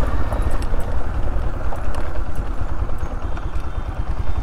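Bajaj Platina 110 motorcycle's single-cylinder four-stroke engine running as it is ridden along a rough dirt track, with a steady rapid beat of firing pulses.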